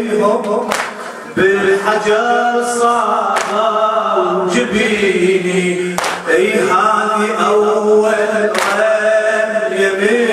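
Male radood chanting a Shia latmiya lament into a microphone in long, drawn-out sung lines. A sharp slap lands about every two and a half seconds, the rhythmic chest-beating that keeps time with a latmiya.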